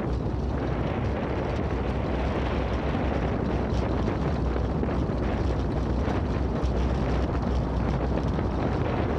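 Steady low rumble of tyres rolling over cobblestone paving, mixed with wind buffeting the microphone.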